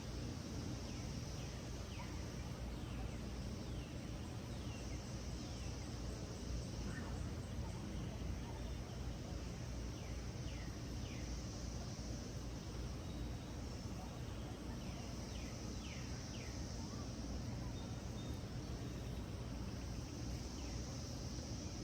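Outdoor ambience: a high insect trill swelling and fading in slow waves, with scattered short falling bird chirps over a steady low rumble.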